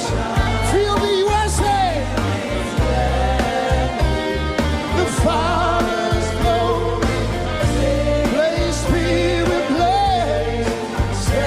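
Live worship music: a band with a steady bass line under a melody that slides and wavers in pitch, with singing.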